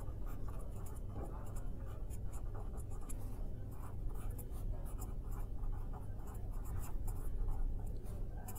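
Pen writing on paper: a quick run of short scratching strokes as words are written out by hand, over a low steady hum.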